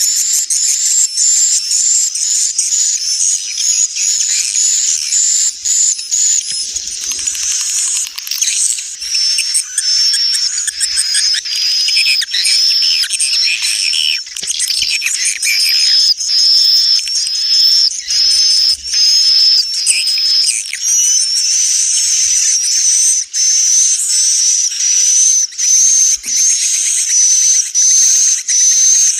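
Swiftlets twittering in a dense, high-pitched stream of rapid chirps and trills. It is a recorded 'inap' roosting call, the kind played in swiftlet houses to lure birds to roost and nest.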